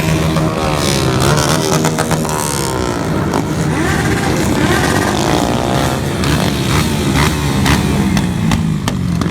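Motorcycle engines running and revving, several at once, their pitch rising and falling as the throttles are blipped.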